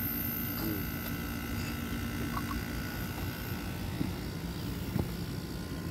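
Window-type air conditioner running, a steady mechanical drone from its compressor and fan, with two faint ticks about four and five seconds in.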